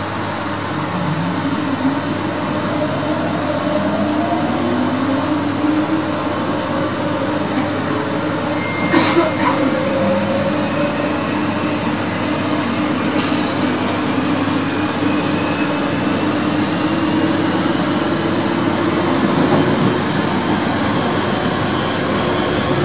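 Electric commuter train heard from inside the carriage as it moves through an underground station, traction motors whining upward in pitch as it picks up speed over a steady rumble. A couple of short knocks come through, about 9 and 13 seconds in.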